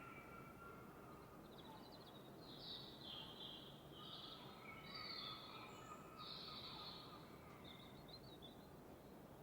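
Faint birdsong, several short chirping phrases one after another, over a steady background hiss.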